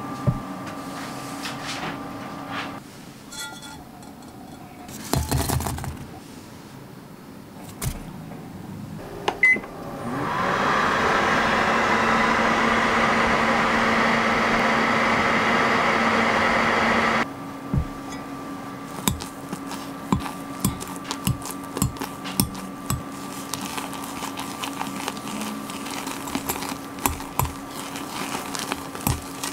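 A short beep, then a microwave oven running steadily for about seven seconds while heating marshmallows and cream cheese in a glass Pyrex jug, cutting off suddenly. After it, a whisk clinks and taps rapidly against the glass jug as the melted mixture is beaten.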